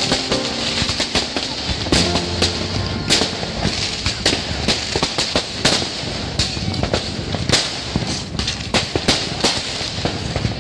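Fireworks and firecrackers going off in a dense, irregular string of sharp bangs and cracks, several a second, with music playing underneath.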